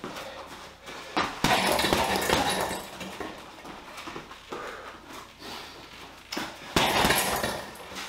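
Gloved left-hand punches landing on a heavy bag in two quick flurries, one about a second and a half in and another near seven seconds, with softer knocks and footwork between.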